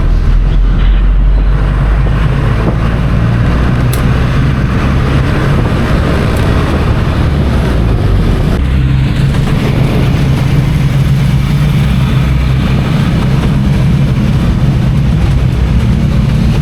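Loud, steady drone of a motor vehicle's engine with road noise, continuous and without a clear rev change.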